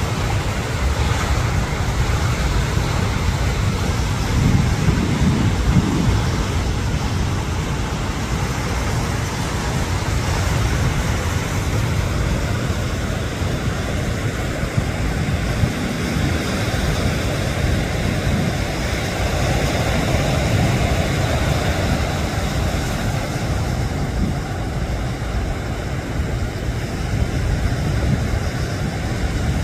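Ocean surf breaking and washing up on a sand beach: a steady rush with a heavy low rumble that swells now and then.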